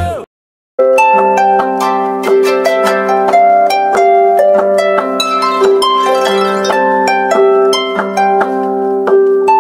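Instrumental music of harp-like plucked strings: a quick run of bright, repeating notes over steady held lower notes, starting after a brief silence just after the start.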